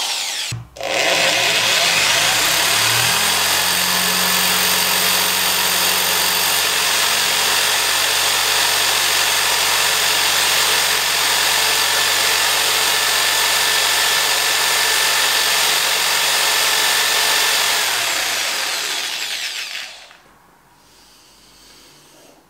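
Corded electric drill spinning a chopstick pressed into a wooden block, the motor running steadily under load as the friction chars the wood and makes it smoke. It stops briefly about half a second in, starts again, runs for about 17 seconds and then winds down.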